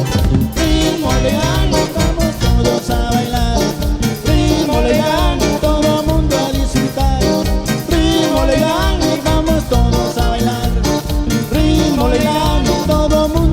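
Cumbia band playing an instrumental passage with a steady dance beat and a melody line running over it.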